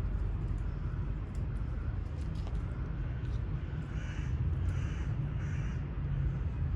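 Crows cawing faintly, three calls about four to five and a half seconds in, over a steady low rumble.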